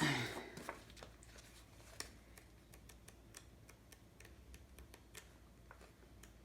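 Faint, scattered light clicks and taps of hands handling paper and small kit parts while searching through an instruction booklet.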